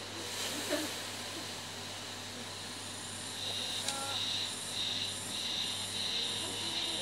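Water ladled onto the hot stones of a tent-sauna stove, hissing and sizzling into steam. From about halfway a high, pulsing hiss comes and goes a couple of times a second, with one light tick just before.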